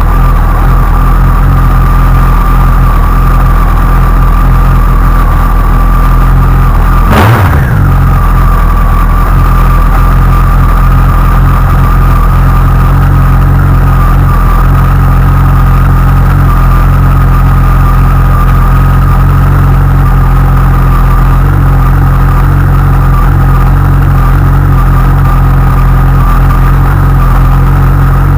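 Honda CBR1100XX's inline-four engine running steadily after a cold start, with an abnormal noise that the owner suspects comes from a faulty cam chain tensioner. A steady high whine runs through it, and about seven seconds in there is one brief rise and fall in pitch, like a short throttle blip.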